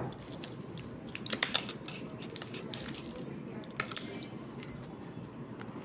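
Light crinkling and clicks of plastic packaging and acrylic keychains being handled on bubble wrap, with a few sharper clicks about a second and a half in and again near four seconds, over steady background noise.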